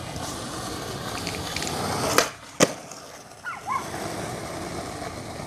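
Skateboard wheels rolling on asphalt, then two sharp clacks of the board about half a second apart, then rolling again.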